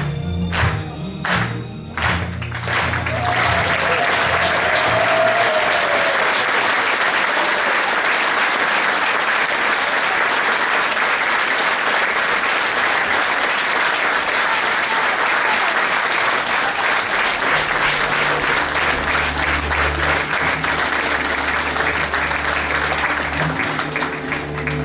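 Folk dance music ends with a few strong beats, then a hall audience applauds at length. About 17 seconds in, instrumental music starts up again under the clapping.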